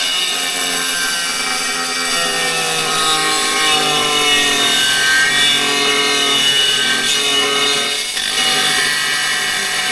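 Power tool cutting a porcelain stoneware tile to open the vent hole, running steadily with a high whine that drifts a little in pitch.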